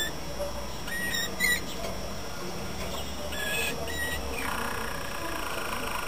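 Male Malinois (Waterslager) canary singing: a few short whistled notes, then from about four and a half seconds in a low, rapid rolling trill.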